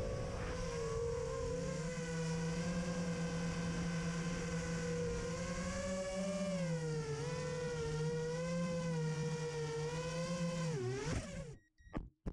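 FPV quadcopter's brushless motors and propellers whining, the pitch wavering up and down with the throttle. Near the end the whine dips in pitch and cuts out, followed by a couple of short knocks.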